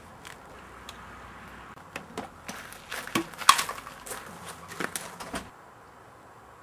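Footsteps crunching on gravel, a run of uneven steps that stops near the end.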